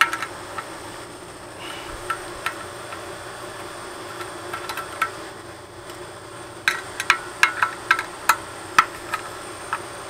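Small sharp clicks and taps of hands working the parts of an opened outdoor LTE router unit, a few scattered at first, then a quick run of clicks in the last few seconds, over a steady background hum.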